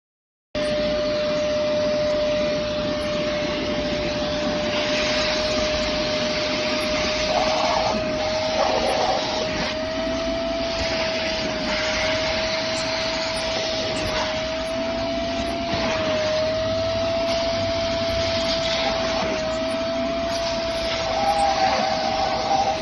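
Hoover CleanSlate portable carpet and upholstery spot cleaner running with suction: a steady motor whine over a rushing noise that wavers slightly in pitch. It cuts in suddenly about half a second in.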